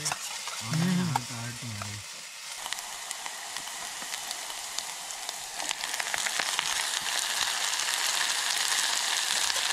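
Paneer bhurji frying in a pan: a steady sizzle, with a few light taps of stirring near the start. The sizzle gets noticeably louder a little past halfway.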